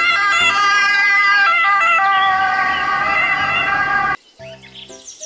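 Emergency-vehicle siren on an ambulance sounding loudly, its pitch stepping up and down. It cuts off suddenly about four seconds in, and fainter short tones follow.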